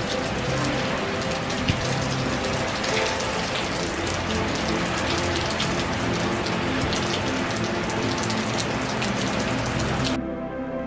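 Steady rain falling outdoors, a dense hiss full of separate drop hits. It cuts off suddenly just before the end, leaving soft music.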